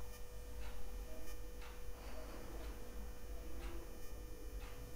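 Faint background room tone: a low steady hum and a faint steady tone, with a few soft ticks about a second apart.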